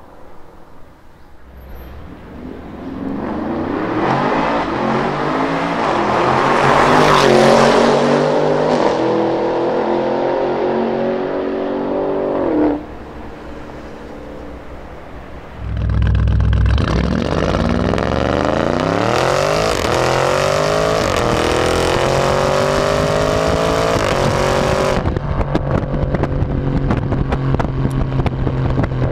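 Lamborghini Urus twin-turbo V8 through a Capristo cat-back exhaust, accelerating hard. The first run builds from about two seconds in, its pitch rising to a peak and then falling, and it cuts off suddenly before the midpoint. A second full-throttle run starts abruptly about sixteen seconds in, with the pitch climbing and dropping back at each upshift. The last few seconds settle into a steadier exhaust note full of sharp crackles.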